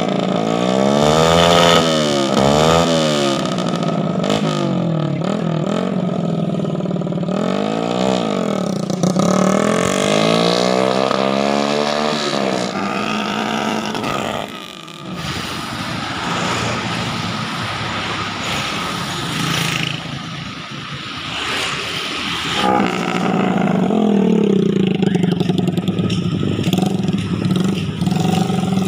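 Honda Supra motorcycle's four-stroke single-cylinder engine, fitted with a PWK 32 carburettor on an otherwise stock engine, revving up and down again and again as it is ridden, then settling to a steady low running note near the end.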